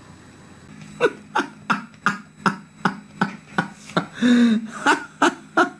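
A man's voice in loud, sharp, evenly spaced bursts, nearly three a second, with a longer drawn-out cry about four seconds in.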